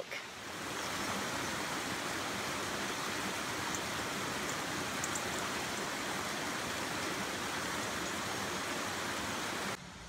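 Shallow rocky stream running over stones and small cascades: a steady rush of water that cuts off abruptly just before the end.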